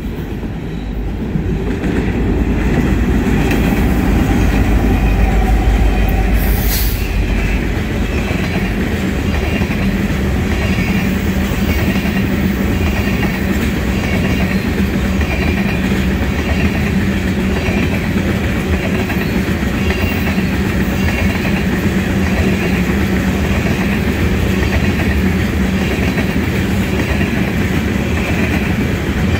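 Norfolk Southern freight train passing close by. The diesel locomotives rumble past, loudest in the first several seconds, followed by the steady rolling of loaded oil tank cars on the rails.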